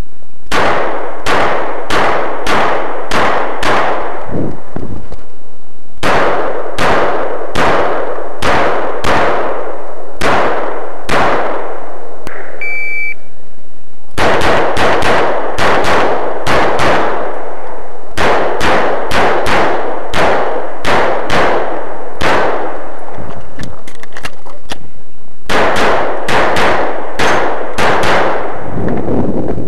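Strings of rapid pistol shots fired in quick bursts with short pauses between them. About 13 seconds in, an electronic shot timer beeps once, the start signal for the next string of shots.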